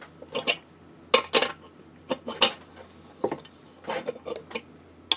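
Steel combination wrench clinking and clicking against the bolt head of a chassis knockout punch as it is fitted and turned, in a few irregular little clusters of light metallic clicks. The punch is being tightened down to cut a tube-socket hole through the chassis.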